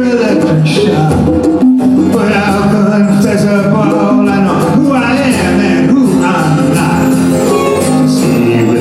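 Live acoustic folk-rock band playing an instrumental passage: violin, acoustic guitars, mandolin and djembe, with sustained, gliding lead lines over a steady strummed accompaniment.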